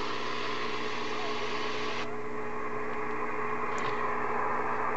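Receiver static hissing from an Icom IC-735 HF transceiver's speaker over a steady hum. About two seconds in, the top of the hiss cuts off abruptly, the sign of the set switching from AM to the narrower lower-sideband filter. A faint click comes near the end.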